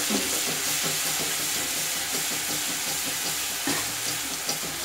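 Ginger, green chilli and garlic paste sizzling and crackling in hot oil in a wok while a metal ladle stirs it. The paste is being sautéed.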